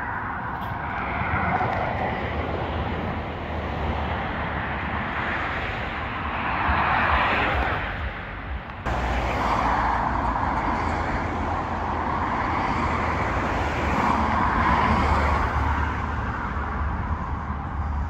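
Outdoor road-traffic noise, swelling and fading as vehicles pass, over a steady low rumble. The sound changes abruptly about nine seconds in.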